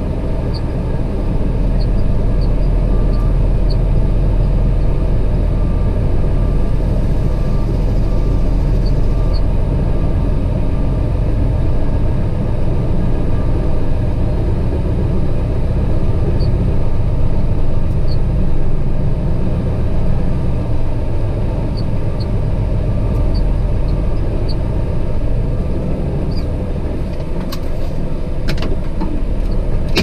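Truck engine running steadily, heard from inside the cab as a loud, even low rumble. A faint repeated beeping sounds in the first half.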